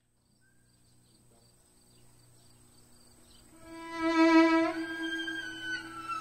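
Background music fading in softly, then a loud held note entering about three and a half seconds in, moving on to other long held notes.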